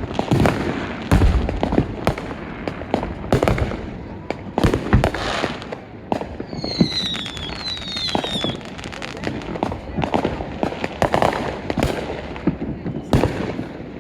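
Fireworks going off in quick succession, many sharp bangs and crackles overlapping. A few high whistles falling in pitch sound about halfway through.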